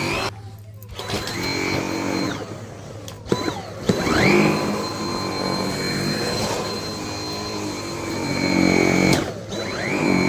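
Vacuum cleaner running on a carpet with a steady motor whine. The sound drops away twice, near the start and after about nine seconds, and each time the whine sweeps back up.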